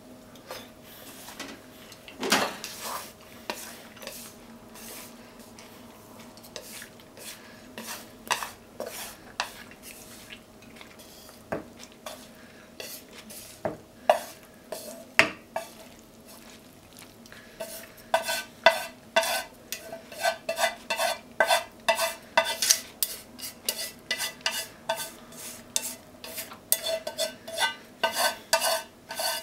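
A utensil scraping and tapping against a frying pan as stir-fried shiitake and leeks are pushed out onto a plate. The clinks and scrapes come irregularly at first, then turn into quick, ringing taps about two a second for the last third, with the hot food sizzling faintly.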